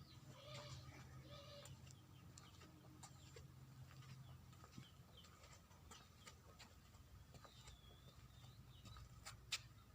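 Young chicks peeping faintly, with scattered short chirps and a few drawn-out calls, over a low steady hum; a single sharp click near the end.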